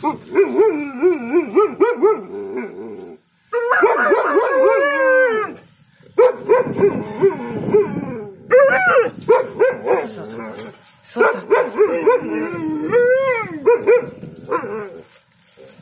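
Alaskan malamutes 'talking': long, wavering howls that slide up and down in pitch, in about five bouts with short pauses between.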